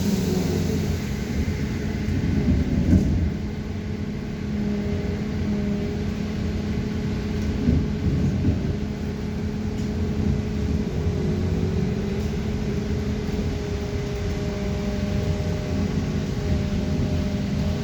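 Belkommunmash BKM 321 trolleybus in motion, heard from inside the passenger cabin. Its electric traction drive gives a steady hum with several held tones over the rumble of tyres and body, with a couple of brief bumps along the way.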